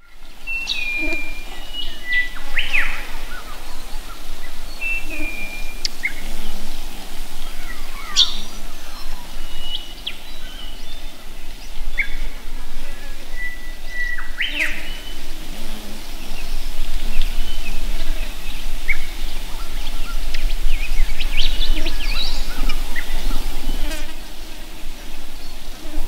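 Wild birds calling: scattered short whistled notes and quick, sharply falling chirps at irregular intervals, over a constant low rumble.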